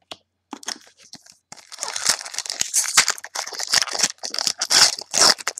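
Foil trading-card pack being torn open and crinkled by hand, after a few soft ticks of cards being handled; the crinkling starts about a second and a half in and goes on in irregular bursts.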